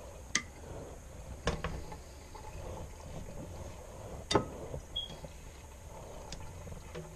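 A few sharp knocks and taps from raw trout fillets and kitchenware being handled at a stainless-steel sink. The loudest knock comes about four seconds in, over a low steady background.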